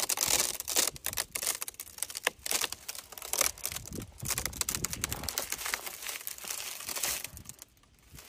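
An ice-coated flag crackling as its frozen, stiffened fabric bends and flaps: a dense, irregular run of sharp crinkling crackles that drops away briefly near the end.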